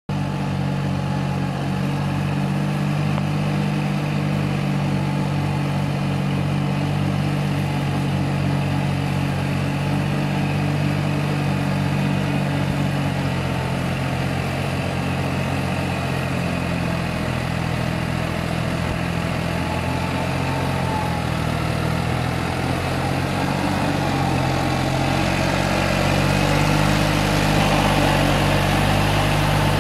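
New Holland tractor's diesel engine running steadily under load as it pulls a rotary tiller through a flooded paddy field. It grows louder and noisier near the end as the tractor comes close.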